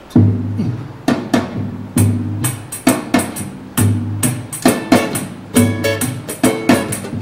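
Forró-style ensemble of zabumba, pandeiro, triangle and queixada, with cavaquinho, playing a lively rhythm together. It starts abruptly, with the zabumba's deep beat about once a second under quick sharp strikes.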